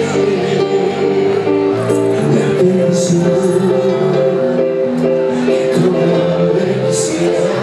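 Live band music, an instrumental stretch with no singing: held chords over a moving bass line, with a bright percussion hit about every two seconds.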